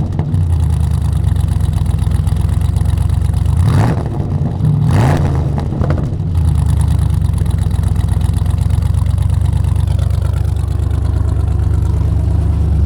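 LS V8 engine running, revved briefly twice about four and five seconds in, then settling to a steady idle.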